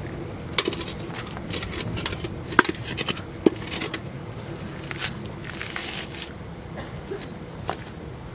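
Steady high-pitched trill of night insects, like crickets, with a few sharp clicks and knocks of hand handling over it, the loudest two about a second apart near the middle.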